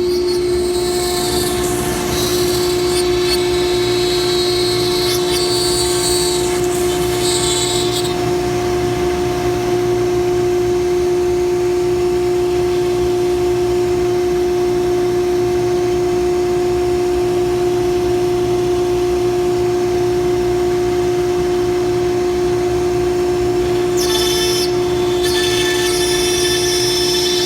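JCUT 25H CNC router cutting wood with a 1/8-inch bit. The spindle, vacuum table pump and dust collector run together as a loud, steady whine, with a harsher, hissing cutting noise during the first several seconds and again near the end.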